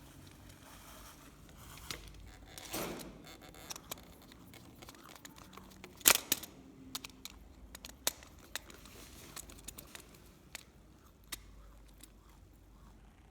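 Scattered clicks, snips and a brief rustle of hand work on electrical wiring and fittings, with one sharp click about six seconds in.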